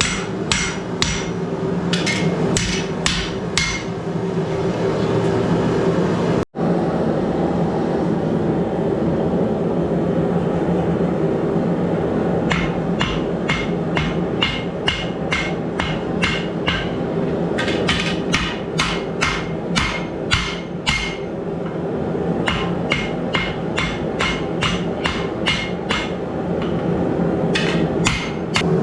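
Forging hammer striking hot steel on an anvil in runs of quick, ringing blows, about three a second, with pauses of several seconds between runs. A steady droning hum runs underneath.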